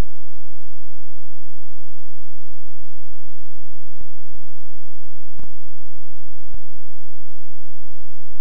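Loud, steady electrical mains hum, a buzz of many fixed tones, with a few faint clicks about midway. It stands in place of the studio sound, so the talking guest is not heard: a fault in the audio feed.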